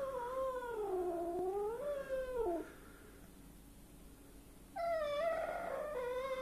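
Angry stray cat yowling: two long, drawn-out calls that dip and rise in pitch, the first ending about two and a half seconds in and the second starting near five seconds in. It is the warning yowl of a frightened, hostile cat.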